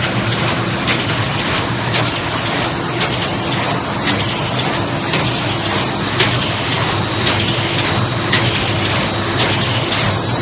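Automatic mechanical-type screen printing machine running: a loud, steady mechanical hiss and whir with a sharp clack about once a second as it works through its print strokes.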